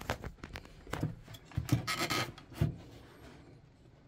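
Handling noise as the magnifier lamp on a helping-hands soldering stand is moved and repositioned by hand: plastic rubbing with a run of clicks and knocks, busiest in the middle and dying away after about three seconds.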